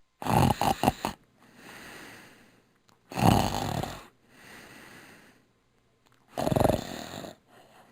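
Snoring: three loud snores about three seconds apart, each followed by a softer, longer breath. The first snore breaks into several quick pulses.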